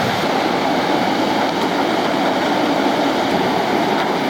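Torrential rain pouring down, a loud, steady rush of water heavy enough to flood the street.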